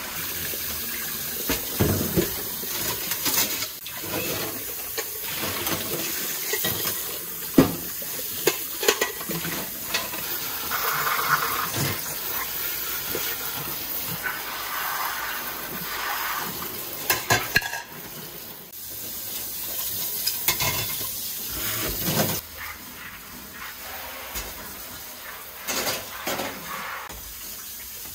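Kitchen tap running into a stainless steel sink while stainless pots are rinsed, with scattered clanks and knocks of metal on metal.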